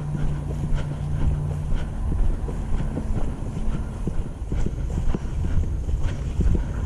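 A string of sharp clicks and knocks, irregular, about one a second, over a low rumble of wind and movement, with a steady low hum in the first couple of seconds.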